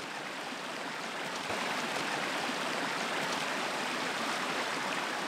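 Muddy, storm-swollen stream rushing and splashing over rocks in a steady, continuous rush, growing louder about a second and a half in.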